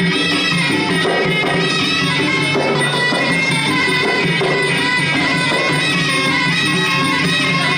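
Traditional Khmer boxing fight music playing without a break: a reedy oboe-like melody held over drums and small hand cymbals.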